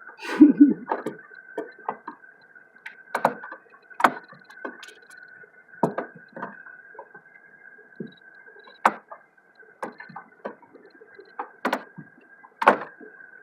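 Irregular clicks and knocks of a tool working a tight radiator hose clamp, with a faint steady high tone underneath.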